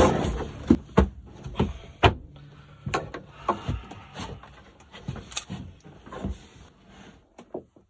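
Irregular knocks and bumps on a boat's fiberglass floor, one or two a second with a few louder ones, from footsteps and handling around an open floor hatch.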